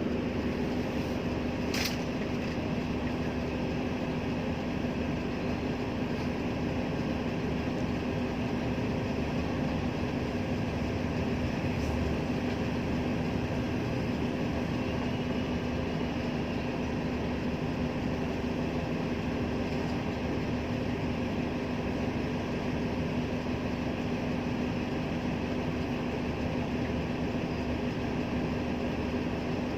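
Steady running drone of a moving vehicle, with an even engine hum that holds one pitch throughout, and a short tick about two seconds in.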